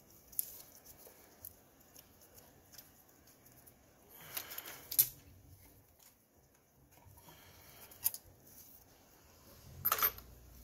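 Gloved hands working on engine parts: scattered light clicks and rustles, with a short rush ending in a sharp click about five seconds in, another click a few seconds later, and a brief rush near the end.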